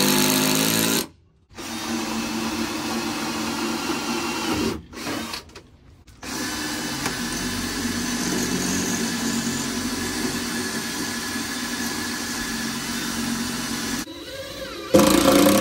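Ryobi cordless drill running in sustained stretches, a short one, one of about three seconds, then a long one of about eight seconds, driving deck screws into pressure-treated wooden stair treads and stringers.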